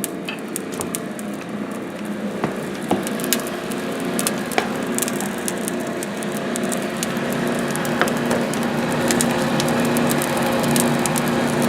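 Wood kindling fire burning in a coal stoker boiler's firebox: rapid, irregular crackles and snaps over a steady rushing draft, as the fire gets going before coal is fed.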